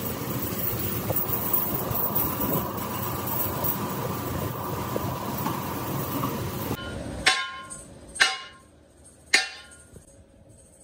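Steady workshop machinery noise that cuts off abruptly, followed by three ringing hammer blows on the steel bogie bracket fitted on the shaft, about a second apart.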